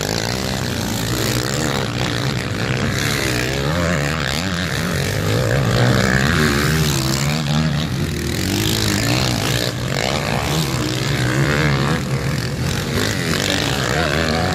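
Several motocross bikes' engines revving on a dirt track. Their pitch keeps rising and falling as the riders open and close the throttle through the corners, and more than one engine sounds at once.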